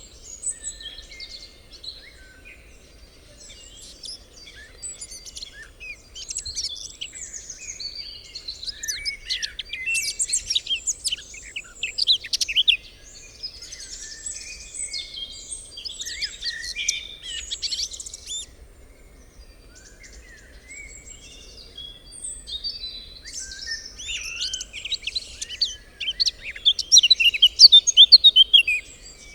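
Several birds singing in a forest, with a blackcap's warbling song among them. Phrases overlap throughout, and the song grows louder about a third of the way in and again near the end.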